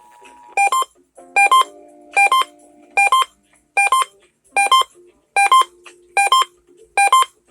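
Electronic beeps in quick pairs, repeating evenly about every 0.8 seconds, nine pairs in all, with faint steady low tones underneath.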